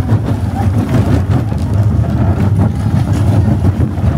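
Barnstormer junior roller coaster train running at speed along its steel track: a steady loud rumble with constant rattling and clatter from the cars.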